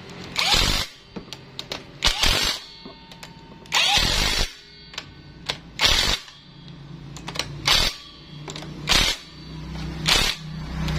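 Cordless impact wrench running down the cylinder head nuts on a Yamaha Mio scooter engine. It fires in about seven short bursts with pauses and small clicks between them as it tightens the nuts one after another.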